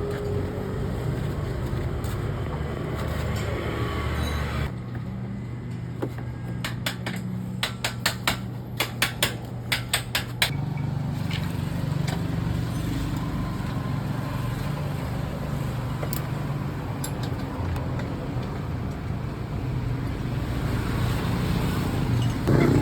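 Steady hum of road traffic and engines, with a quick series of sharp metallic clicks from hand tools working on a scooter's body panels, about seven to ten seconds in.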